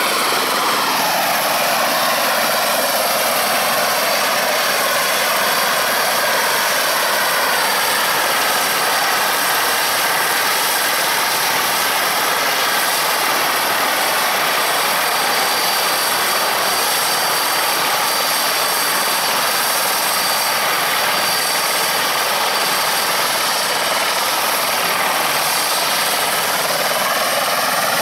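Eurocopter EC120 Colibri helicopter running on the ground with its single Turbomeca Arrius turboshaft engine and rotors turning, a steady loud turbine whine with high-pitched tones over the rotor noise.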